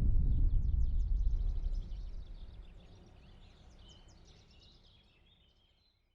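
Birds chirping quickly in high, short notes over a deep, low rumble. The rumble fades away over the first three seconds, and the whole soundscape fades out near the end.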